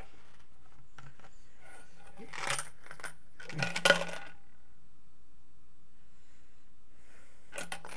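Metal coins clinking together in two short clusters of jingles, about two and a half and four seconds in, the second the louder. A few more faint clinks come near the end.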